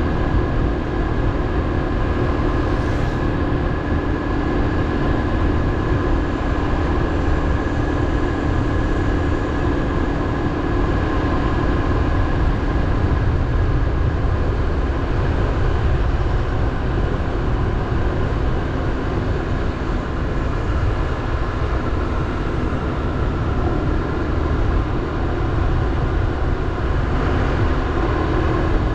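Motorbike engine running at a steady speed while riding, a constant drone over a heavy rush of wind and road noise.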